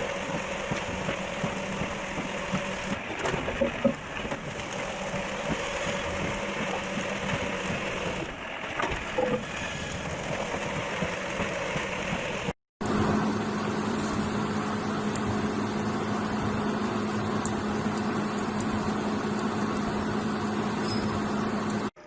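Factory machinery running steadily with a low hum and a few short clanks. About halfway through it cuts off abruptly and gives way to another steadily running machine with a stronger, even hum.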